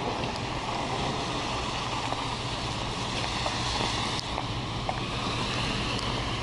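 Truck driving over a wet, hail-covered road, heard from inside the cab: steady engine hum and a wash of tyre noise, with a few scattered faint ticks.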